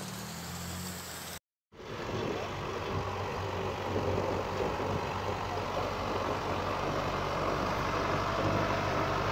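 Tractor engine running steadily as its front blade pushes snow, building slightly in loudness, after a brief total dropout about a second and a half in. Before the dropout, a lower vehicle engine hum.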